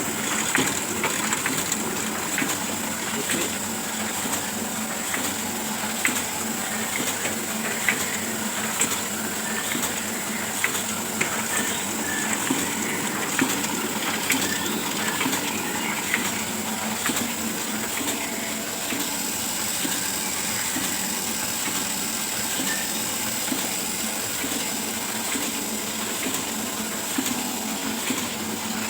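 Oliver 72 sheet-fed offset printing press running steadily on the yellow pass of a four-colour job: a constant mechanical hiss and hum with a dense, irregular clatter of clicks.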